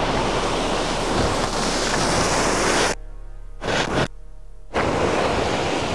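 Surf breaking and washing against the jetty's rock boulders, with wind buffeting the microphone; the rush of noise cuts out suddenly twice, briefly, about halfway through.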